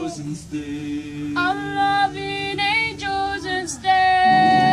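Boys' vocal group singing a cappella in harmony, holding long notes. A higher voice comes in about a second and a half in, and the parts swell into a louder held chord near the end.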